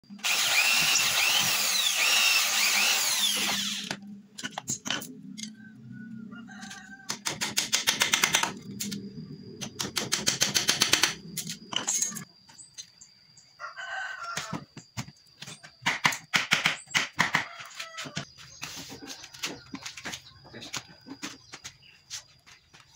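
A corded electric drill runs loudly, boring into a wooden chair frame for about four seconds, then goes quiet. After that come two runs of rapid knocks and scattered clicks from the woodwork, with chickens clucking and a rooster crowing in between.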